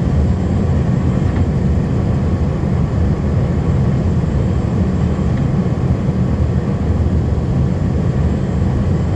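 Snowplow hook truck heard from inside the cab while plowing: a steady low engine and road drone that holds even throughout.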